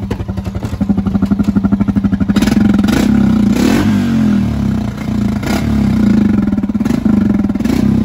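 The 2020 Rubicon ATV's engine running with a fast, even firing pulse. It gets louder about two and a half seconds in as it is revved a little, with a few sharp knocks scattered through.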